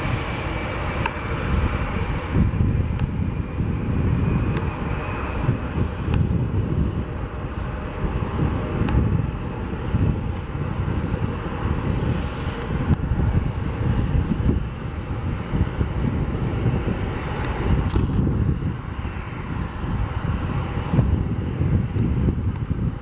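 Airbus A330-200's Pratt & Whitney PW4168A turbofan engines running at taxi power as the airliner rolls past, a steady jet rumble. A thin high whine fades out about three seconds in.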